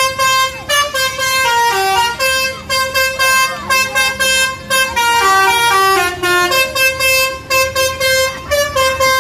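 Bus telolet basuri melody horn playing a tune: a quick run of short horn notes stepping up and down in pitch.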